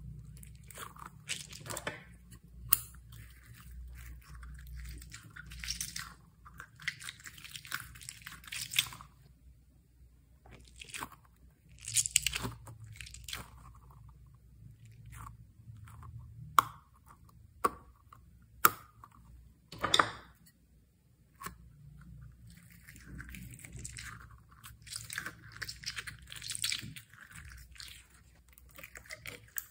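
Slime being squished and kneaded by hand, giving irregular crackling bursts and several sharp pops.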